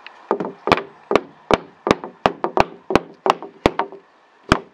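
A wooden block laid on the top edge of a car door trim panel is struck again and again, about three sharp knocks a second, with a short pause near the end. The blows knock the push-fit trim down onto the door.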